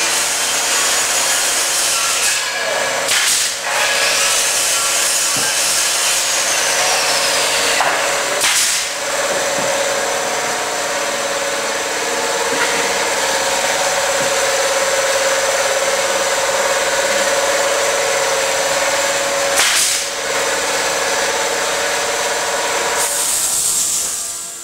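Steady, loud machine noise, a hiss with a steady hum, broken by a few brief knocks; it drops away sharply near the end.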